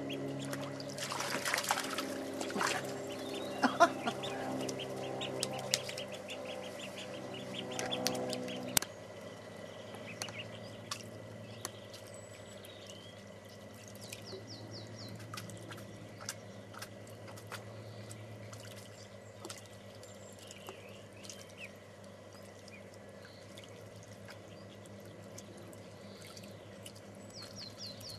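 Ducklings splashing and dabbling in a shallow tray of water: irregular splashes, drips and water pouring off them, with a few short high peeps. A steady low hum sits under the first nine seconds or so and stops suddenly.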